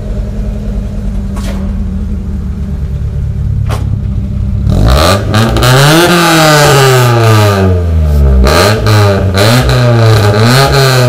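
Honda Civic hatchback idling steadily through a freshly fitted GReddy aftermarket exhaust, then, a little under five seconds in, revved up and down several times, each rise louder than the idle.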